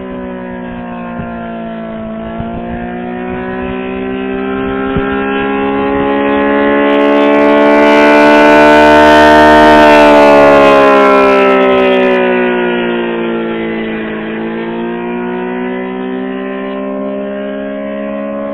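ACA Allertor 125 outdoor warning siren sounding in attack mode: a loud, many-toned wail whose pitch slowly falls, rises and falls again. It swells to its loudest about halfway through and fades back. The uploader thinks the siren sounds a little sick.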